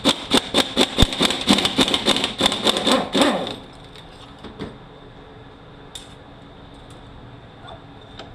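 A ratchet wrench clicking rapidly and evenly, about five clicks a second, while working a fastener on a Mercedes 722.9 automatic transmission; it stops about three and a half seconds in, leaving a quiet shop background with one small tap.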